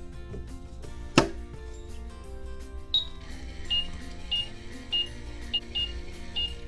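Minnie Mouse toy microwave oven: a sharp click about a second in, then from about halfway a run of short, high electronic beeps, roughly two a second. Children's background music plays underneath.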